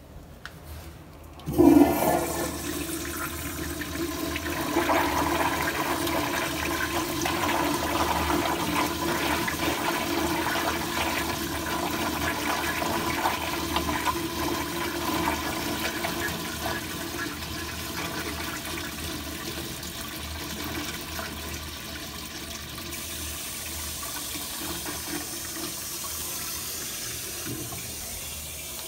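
American Standard Glenco toilet flushed through its flushometer valve about a second and a half in: a sudden loud rush of water, then a long steady flow through the bowl with a steady low tone under it, easing slightly near the end.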